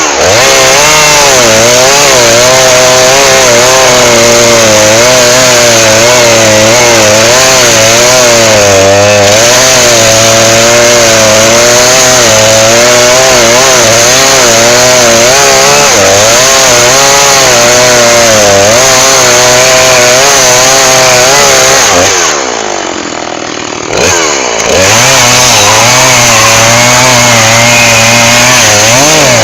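Chainsaw at full throttle cutting wood, its engine note wavering under load. About three quarters of the way through it drops back to idle for a moment, then revs up and cuts again, falling away right at the end.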